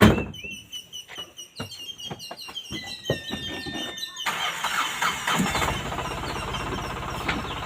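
An engine starts about four seconds in and then runs steadily with a fast, even beat. Before that come a sharp knock, scattered clicks and a brief thin whine.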